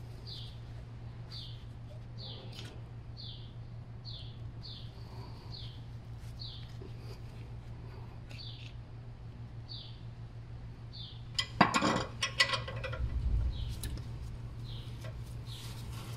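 Metal clinks and knocks from a car brake caliper being worked off its bracket, in a short loud cluster about three-quarters of the way through. Over a steady low hum, a bird chirps repeatedly, short falling chirps every half second to a second.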